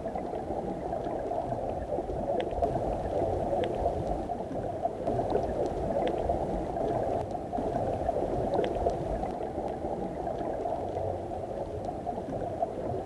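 Underwater ambience: a muffled, steady rush and gurgle of water with scattered faint sharp clicks.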